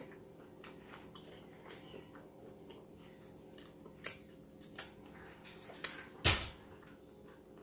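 Crisp crunches of a hard corn taco shell being bitten and chewed: a few scattered crunches in the second half, the loudest about six seconds in, over a faint steady hum.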